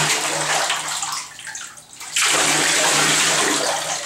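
Water poured from a plastic bowl over a dog standing in a bathtub, splashing into the tub water. There are two pours with a short break between them about a second in, and the splashing thins out near the end.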